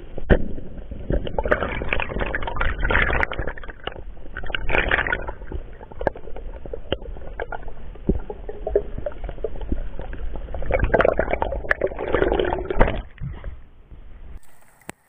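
Muffled underwater sound through a camera's waterproof housing: a low rumble with several swells of rushing, gurgling water and scattered sharp clicks as the diver swims. The sound cuts off about a second before the end.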